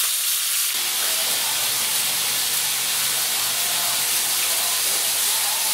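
A coiled sausage frying in a pan: a steady sizzling hiss of hot fat.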